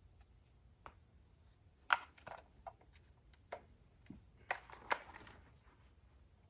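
Hands handling a small plastic radio: a scatter of irregular clicks and knocks with brief rustles, the sharpest about two seconds in and another cluster around five seconds.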